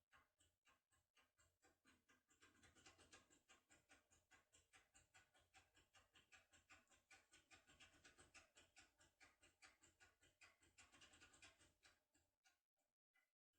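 Very faint rapid scratching and clicking, about six strokes a second, from a foil-type locksmith tool being rocked back and forth inside an ISEO R500 lock cylinder under tension from its handle.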